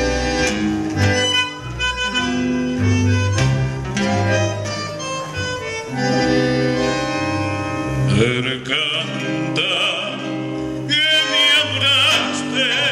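Live tango band playing the introduction of a sung tango, over a firm, moving bass line, with wavering held notes in the melody from about two-thirds of the way in.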